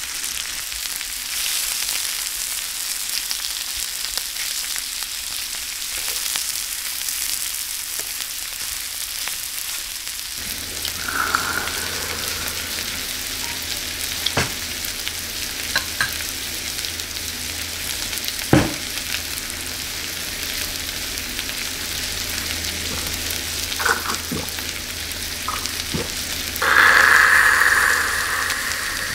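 Beef intestines sizzling on a hot grill pan: a steady frying hiss. It is dotted with a few sharp clicks, and there is a brief louder sound near the end.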